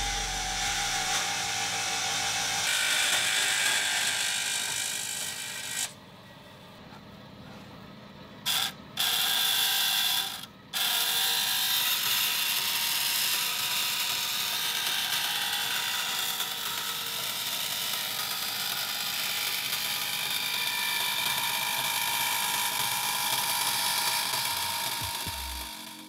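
Vertical band saw cutting sheet steel along a paper template: a steady, high-pitched rasp of the blade teeth in the metal. It drops away for a few seconds about a quarter of the way in, then carries on.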